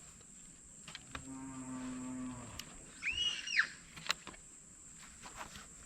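A long, low, steady call lasting about a second and a half, starting about a second in, followed about three seconds in by a short high-pitched call that rises and falls.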